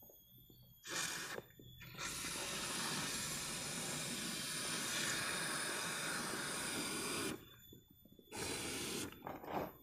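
Aerosol can of foaming car AC cleaner spraying through its extension tube into the air-conditioning unit: a short hiss about a second in, a long steady hiss of about five seconds, then another short burst near the end.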